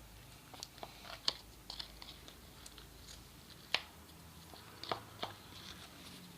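Glue slime being stirred in a bowl: sticky squelching and scattered sharp clicks of the stirrer, the loudest a bit over halfway through.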